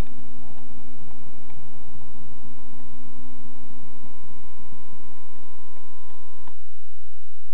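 Steady hum made of a few pitched tones over a low rumble. The tones cut off suddenly about six and a half seconds in.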